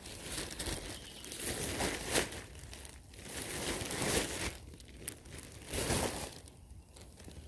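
Thin plastic rubbish bag crinkling and rustling in irregular bursts as clothes and shoes are stuffed into it by hand.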